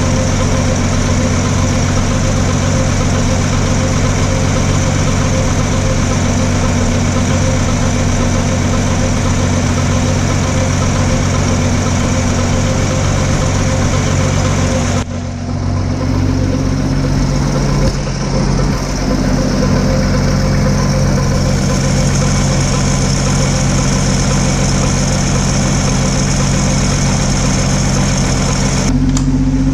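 Ford F100 pickup engine idling steadily. The sound changes abruptly about halfway through and again near the end.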